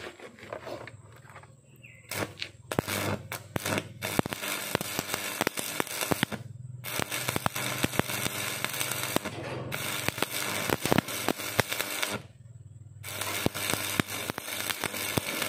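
Stick (arc) welding: the electrode's arc crackling and sputtering in runs of a few seconds, with short breaks about halfway through, again a little later, and near the end.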